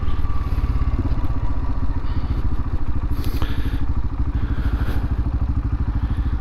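Royal Enfield Himalayan's single-cylinder engine running with a steady, rapid, even beat.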